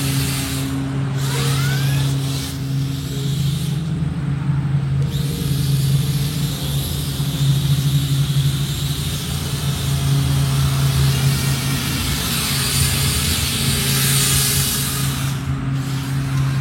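Remote-control drone built as a model of the Enterprise NCC-1701-A, its small electric propellers buzzing steadily in flight with a low hum.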